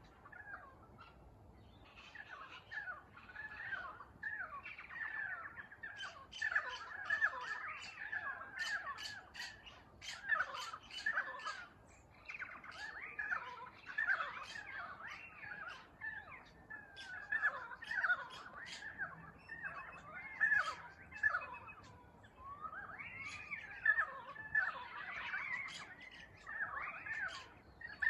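A chorus of currawongs and parrots calling over one another: many quick gliding calls and sharp squawks. It is faint for the first couple of seconds, then thick and continuous.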